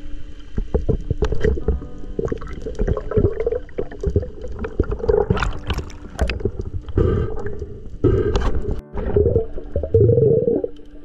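Muffled underwater sound picked up by a diver's camera: uneven gurgling and rushing of water in surges of about a second, loudest near the end.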